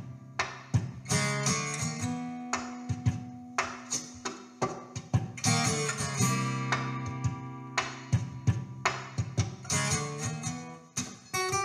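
Background music: acoustic guitar playing strummed and plucked chords.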